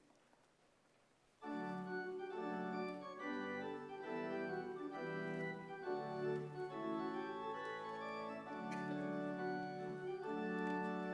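Organ music starting abruptly about a second and a half in: sustained chords that change every second or so, after a brief near-quiet pause.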